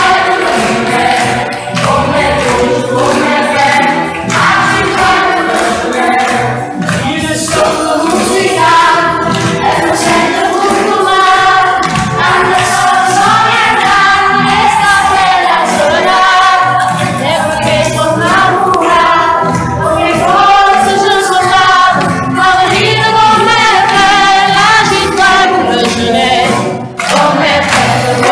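Children's choir singing together over a steady beat, with a brief break near the end.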